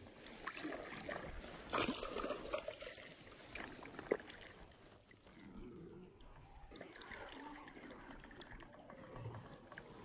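Canoe paddle strokes: water trickling and dripping off the paddle blade, with a sharp knock about two seconds in and another brief one about four seconds in.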